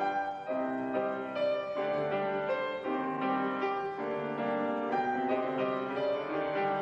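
Piano music: a slow run of held notes and chords, played softly and evenly.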